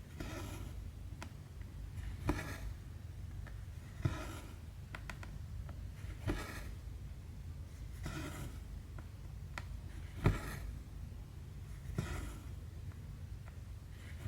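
Needle and thread being stitched through cross-stitch fabric about every two seconds, each stitch a short tick of the needle piercing the canvas followed by a brief swish as the thread is drawn through.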